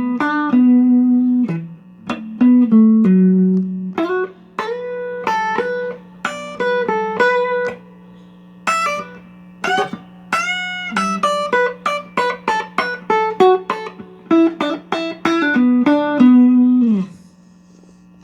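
A 2015 Mexican-made Fender Stratocaster electric guitar playing a run of single plucked notes and short melodic phrases, with a few longer held notes. A held note slides down in pitch about a second before the end.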